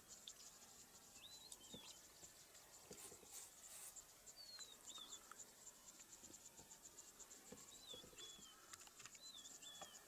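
Faint insects chirping in a fast, even ticking, with a small bird giving a short two-note whistle four times, every two to three seconds.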